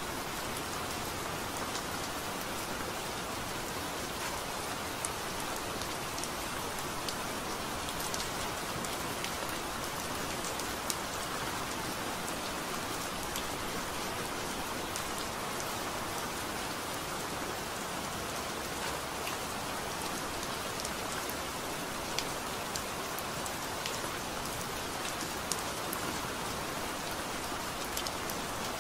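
Steady rain falling: an even hiss with scattered sharper ticks of single drops.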